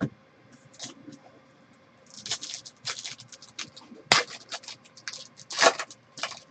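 Trading cards being handled and laid on a table, then a foil card pack crinkling as it is worked open. There is a sharp tap about four seconds in, and the loudest crackle comes just before the end.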